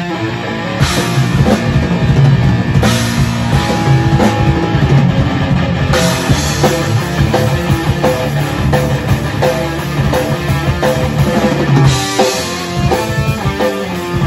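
Rock band playing live: a drum kit with bass drum and cymbals beating under electric guitars.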